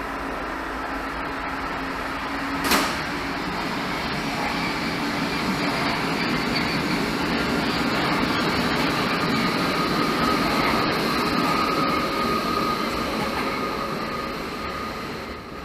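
Munich U-Bahn train pulling out of an underground station and running along the platform, a steady rumble with a faint whine, fading as it leaves. There is a sharp click about three seconds in.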